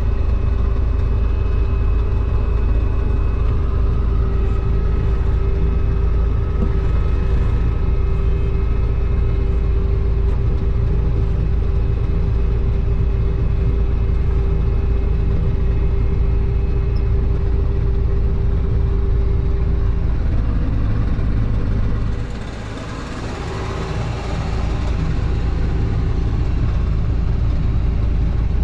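New Holland TR89 combine harvester running steadily, a constant whine over its engine drone. About 22 seconds in the sound dips briefly and a rushing hiss swells, then the steady running returns.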